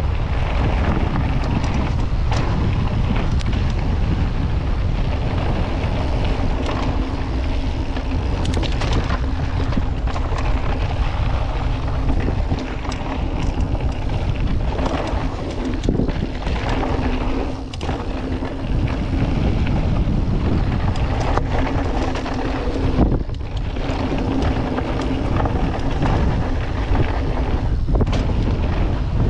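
Wind rushing over an action camera's microphone on a fast mountain-bike descent, with frequent knocks and rattles from the bike over rough trail.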